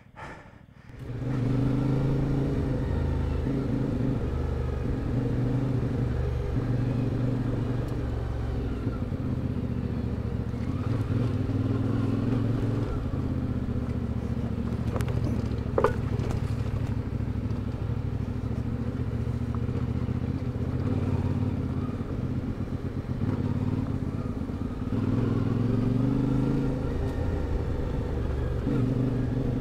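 CFMOTO 450MT's parallel-twin engine running under way, its revs rising and falling with the throttle. It starts about a second in. There is one short sharp click midway.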